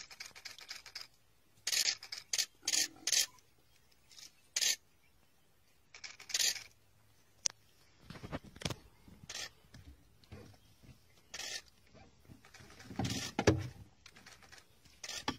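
Spotted hyena biting and tearing at a live impala: irregular short rips and crunches, the loudest a cluster about thirteen seconds in.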